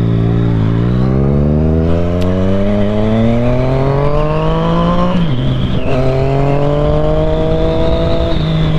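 Yamaha FZ-09 inline-three engine accelerating hard: the pitch climbs for about five seconds, drops sharply at an upshift, then climbs again more slowly and eases near the end. Wind rushes over the microphone under it.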